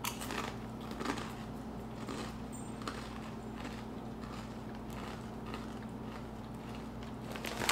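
Faint crunching as a lattice-cut kettle potato chip is chewed, a few crisp crunches in the first three seconds, over a steady low hum.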